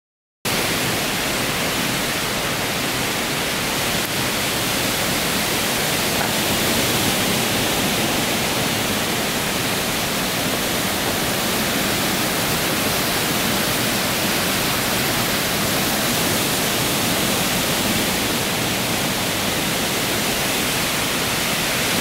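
Sustained 40–50 mph wind rushing steadily through conifer treetops, a constant even hiss without distinct gusts or lulls.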